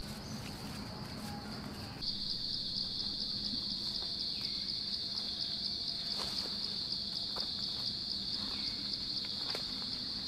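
Forest insects trilling in a steady, high, rapidly pulsing chorus that gets louder about two seconds in. A few footsteps and rustles come through the undergrowth.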